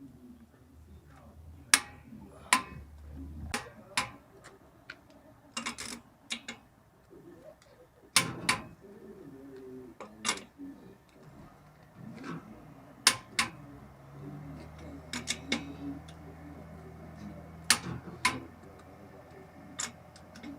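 Irregular sharp clicks and knocks of hard objects being handled, about twenty over the stretch, over a low steady hum.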